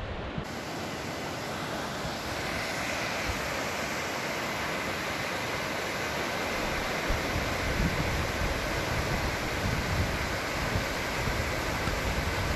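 Steady rush of flowing water, with wind rumbling on the microphone in the second half.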